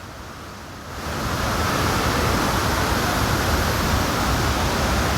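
Steady rushing water of a waterfall, quieter for about the first second, then swelling to a full, even rush.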